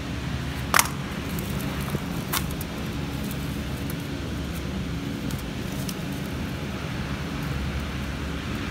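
Handling of a coil of 3 mm titanium wire: a sharp click just under a second in and a lighter one about a second and a half later, with a few faint ticks. Under them is a steady low mechanical rumble.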